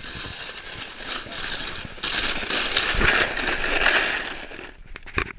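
Sled sliding fast over snow: a rushing, scraping hiss that grows loud about two seconds in, with a low thump about three seconds in. It dies away sharply as the ride stops, followed by a couple of knocks.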